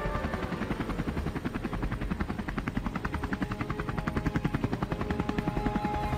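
Robinson R44 helicopter in flight, heard from inside the cabin: the rapid, even chop of the two-bladed main rotor over the steady drone of its piston engine.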